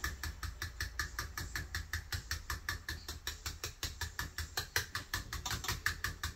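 Fork beating eggs into a wet batter in a bowl, clicking against the bowl in a fast, even rhythm of about seven strokes a second.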